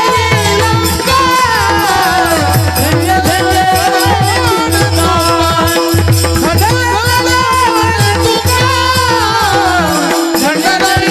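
Marathi kirtan singing: a voice sings a melodic line with long gliding, ornamented notes. Underneath run a steady held drone and a quick, even rhythm of hand cymbals.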